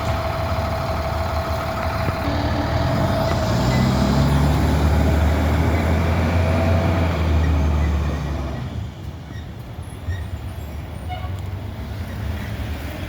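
Fire truck's diesel engine running with a deep rumble and a steady high tone over it. It swells louder over several seconds, then falls away sharply about eight and a half seconds in.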